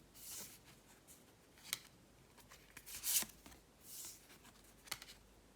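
Tarot cards being handled: a few soft swishes of cards sliding against each other, and several short sharp taps as cards are laid down.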